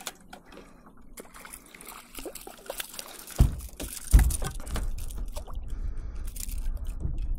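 Water splashing and trickling around a kayak, with small knocks. Two dull thumps come about three and a half and four seconds in, followed by a steady low rumble.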